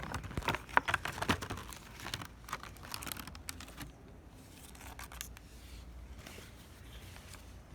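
Plastic toy packaging crinkling and rustling as it is handled, with quick small clicks and taps, busiest in the first two seconds, then fainter handling.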